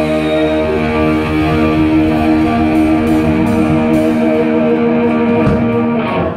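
Live rock band holding a long final chord on distorted electric guitar through a Randall amp, with drums churning underneath. The chord cuts off sharply about six seconds in, ending the song.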